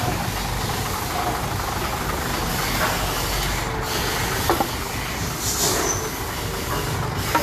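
Heavy machinery running steadily with a low hum and a hissing noise, a couple of light knocks about four and a half seconds in and a brief higher hiss shortly after.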